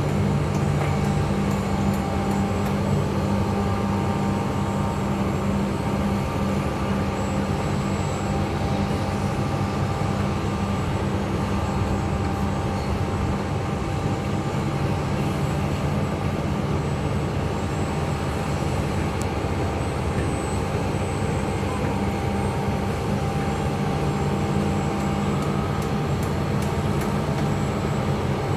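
A heavy vehicle's engine running steadily at an even speed, a low continuous hum with no change in pitch or level.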